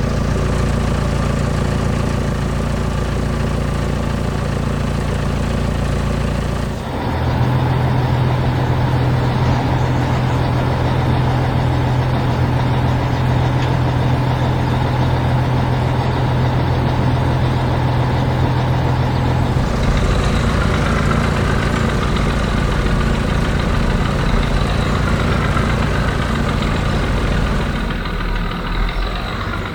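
Heavy vehicle engines running steadily, one engine sound giving way to another about seven seconds in and again about twenty seconds in.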